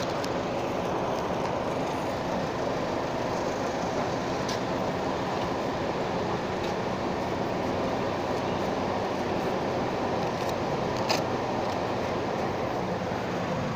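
Steady engine rumble from vehicles and machinery around a ferry terminal. A faint low hum runs under a constant noisy drone. Two short clicks come, one about four seconds in and one near the end.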